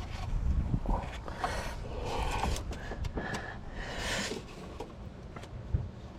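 Scattered clicks and light knocks of hand tools and parts being handled in a car's engine bay, with rustling.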